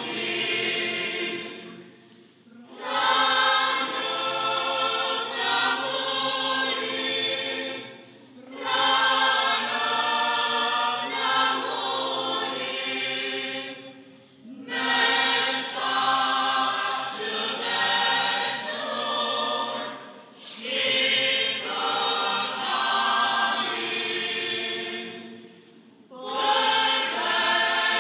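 Choir singing as background music, in long phrases with brief pauses between them about every six seconds.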